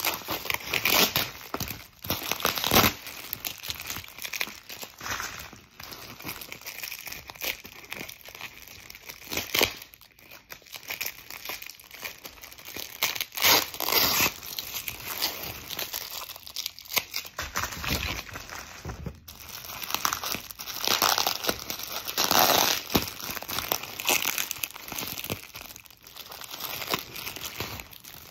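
Clear plastic packaging crinkling as it is handled and pulled open, in irregular bursts of crackle throughout.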